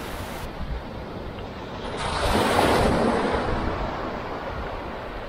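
Sea waves washing onto the beach, one wave swelling to a peak about two seconds in and then fading, with wind rumbling on the microphone.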